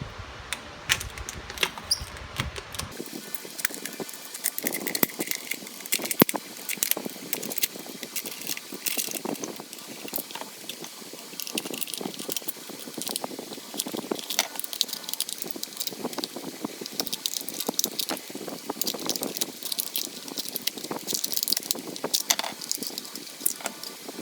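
Irregular clicks, clinks and light rattles of small hard parts being handled, consistent with router bits and their storage box being taken apart and worked on by hand.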